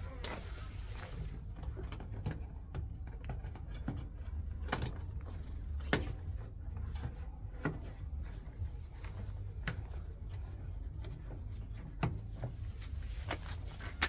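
Hands working a rubber washing-machine door gasket onto the front lip of the drum's outer tub, giving scattered light knocks, clicks and rubbing a second or two apart over a steady low hum.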